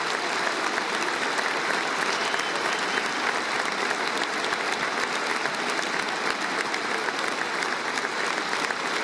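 Large concert audience applauding: dense, steady clapping from many hands at an even level.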